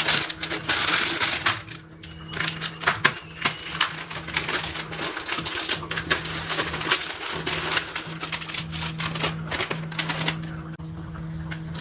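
Cooking in a pan: rapid, irregular clicking and crackling over a steady hum. The crackle thins out at about ten seconds.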